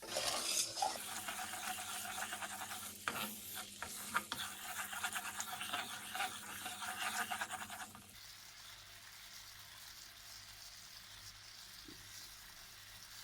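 Cashew powder being stirred into hot sugar syrup in a pan: a utensil scraping and knocking against the pan over a soft sizzle. After about eight seconds it drops to a faint hiss.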